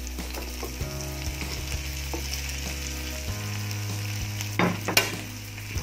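Oil sizzling steadily in a hot frying pan as broccoli florets go into frying shallots, garlic, ginger and chili. There are a couple of sharp knocks about five seconds in.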